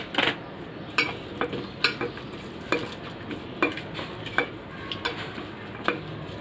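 Hands squeezing and mashing chopped onion and tomato in a steel bowl to soften them: a steady wet mashing sound with a sharp click about once a second.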